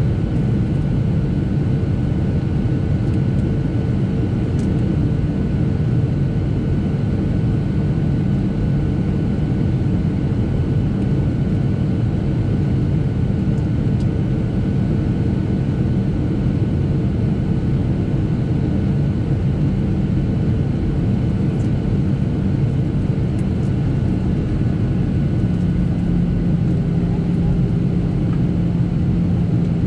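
Steady cabin noise of a Boeing 737-700 in flight, heard from a seat over the wing: the low roar of its CFM56 turbofan engines and the airflow along the fuselage. Near the end a steady low hum joins in.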